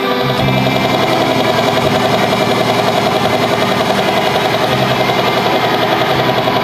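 A loud, steady mechanical drone with a fast, even pulse.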